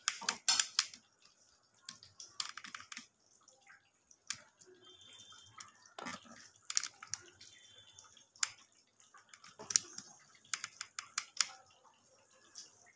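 Gandharaj lemon squeezed by hand over a metal pan of chicken curry: faint, scattered clicks and taps of handling, with quiet gaps between.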